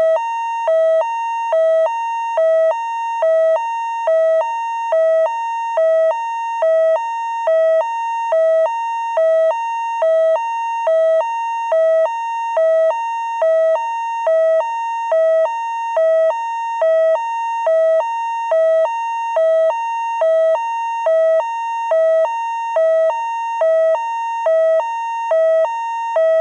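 Two-tone hi-lo fire engine siren, switching steadily between a low and a high note a little more than once a second.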